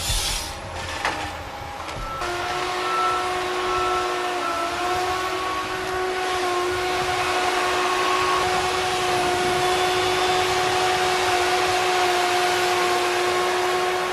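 Tigercat LH845D levelling harvester working, with a few knocks in the first two seconds, then a steady high whine from its machinery sets in over the running noise and holds level.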